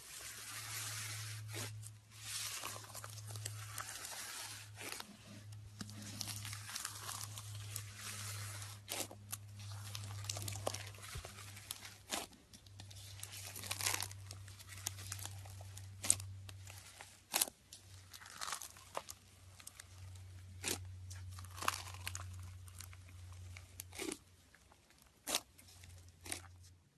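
Slime being kneaded and stretched by hand: a crackling, sticky hiss broken by many sharp pops.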